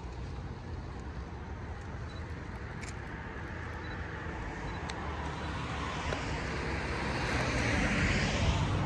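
A vehicle approaching and passing. Its rumble rises steadily in level and peaks near the end with a rush of hiss.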